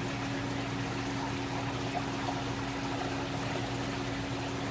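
Aquarium pump and filtration running: a steady low electrical hum under an even wash of moving water.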